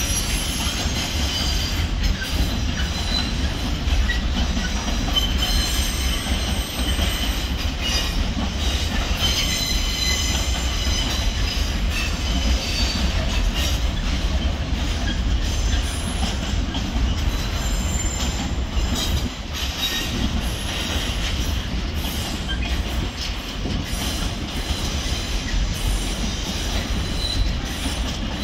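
Container freight train's flat wagons rolling past in a steady low rumble, with high-pitched wheel squeal coming and going.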